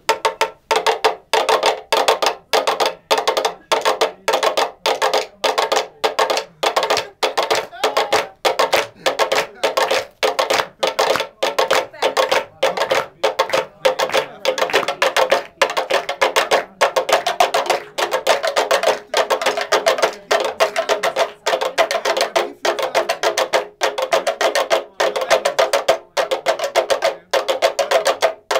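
A group beating long bamboo tubes on the floor with sticks: many quick woody knocks in a steady ensemble rhythm, with a pitched ring between strikes.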